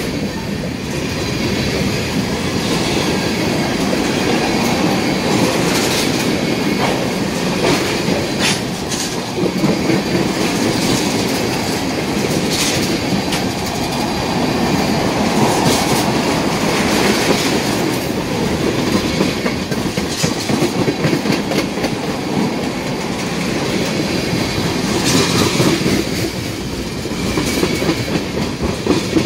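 Freight train of tank cars rolling past close by: a steady rumble and clickety-clack of steel wheels on the rails, with a few brief, sharp, high metallic sounds from the wheels.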